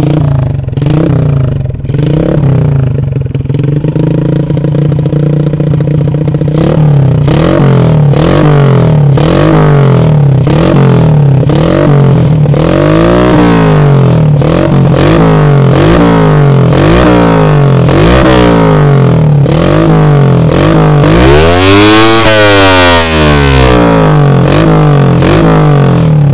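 Suzuki Shogun's single-cylinder four-stroke engine being revved in the open, the throttle blipped over and over in revs of about a second each, with one longer, higher rev near the end.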